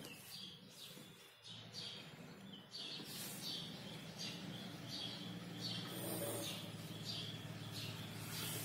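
Faint bird chirping: short, high chirps repeating about twice a second, over a low steady hum.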